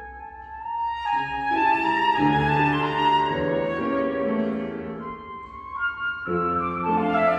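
Concert flute and grand piano playing classical chamber music: the flute holds a long note as piano chords come in about a second in, then carries the melody over the piano accompaniment.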